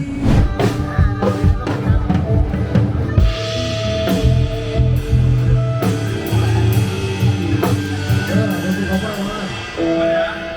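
Rock band playing: drum kit beating steadily over bass and sustained guitar tones, with a held sung note near the end.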